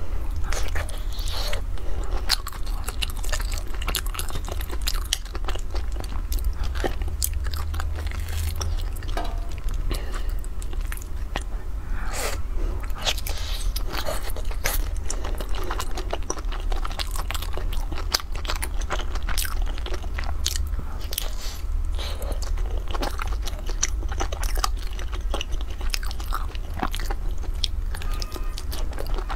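Close-up eating sounds: a person biting and chewing crunchy food, with many irregular crunches and mouth clicks over a steady low rumble.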